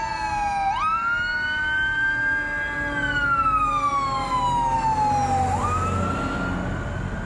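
Emergency vehicle sirens wailing as they pass on the road, over the rumble of traffic. The main siren's pitch slides down, jumps up about a second in, climbs slowly, slides down again and jumps up near the end, with a second siren sounding under it.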